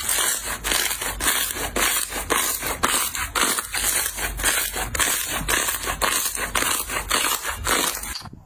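Slime being squeezed and pressed by hand close to the microphone, a steady run of short squishing strokes about three a second, cutting off shortly before the end.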